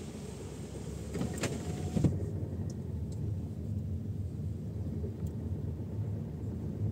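Ford Kuga's engine and road noise heard inside the cabin while driving, a steady low rumble. There are a couple of knocks about one and a half and two seconds in, and after the second one the higher hiss suddenly drops away.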